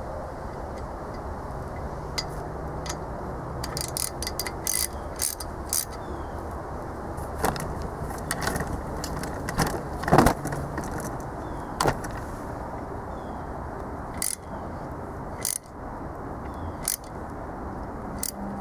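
Irregular sharp clicks and clinks of small metal parts and hand tools being handled over a steady low background hum, with the loudest knock about ten seconds in.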